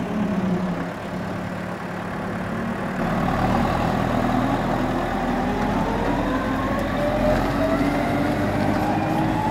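Manitou MLT 526 telehandler's Perkins diesel engine running. It gets louder about three seconds in, and in the second half a whine climbs steadily in pitch as the machine lowers its raised bucket and moves off.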